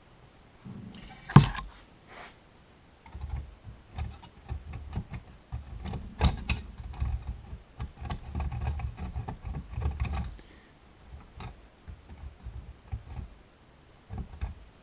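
Hand-working noises on a small metal part: one sharp knock about a second and a half in, then a run of irregular clicks, knocks and scrapes that thins out to scattered ticks near the end.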